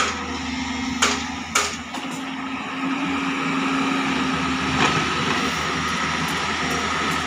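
JCB tracked excavator's diesel engine running steadily under load while it digs, lifts and swings a bucket of earth. There are two sharp knocks about a second in and a smaller one near five seconds.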